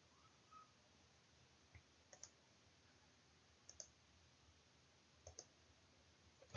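Faint computer mouse clicks over near silence, mostly in quick pairs, one pair every second and a half or so.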